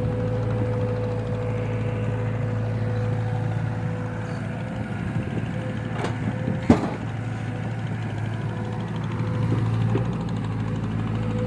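JCB 3DX backhoe loader's diesel engine running steadily with a low drone, and one sharp knock about six and a half seconds in.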